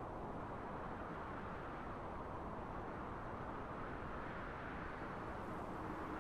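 Steady wind, a low even rushing with no distinct gusts. A faint low hum comes in near the end.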